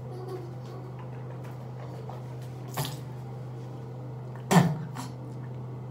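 A person spitting out a mouth rinse: a small spit about halfway through, then a loud, short one, over a steady low hum.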